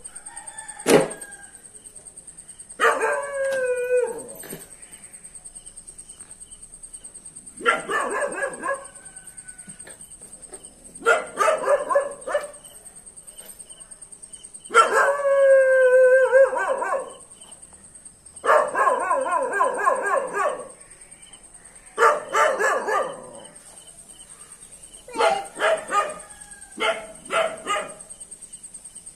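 A dog barking and howling in about eight separate bouts of one to two seconds with short pauses between, some calls sliding in pitch.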